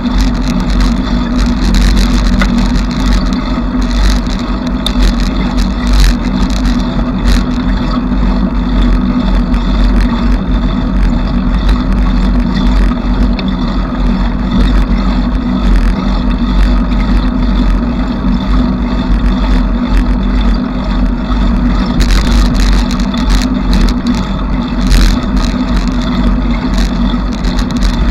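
Noise of a bicycle being ridden: a loud, steady rumble with constant small clicks and rattles from the bike.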